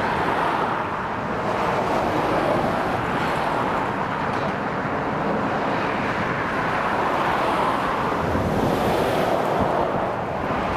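Road traffic passing close by: a steady rush of tyres on asphalt that swells and eases as vehicles go past, loudest near the end as a lorry goes by.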